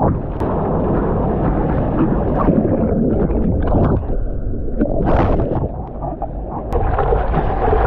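Ocean surf and water rushing and splashing close to the microphone, with a low rumble throughout and a brief louder rush about five seconds in.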